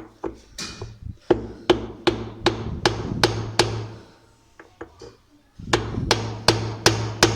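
Hammer blows on the washing machine gearbox to loosen its tight central bolt: a run of about seven sharp, ringing metal strikes, a pause, then about five more at the same steady pace of roughly two and a half a second.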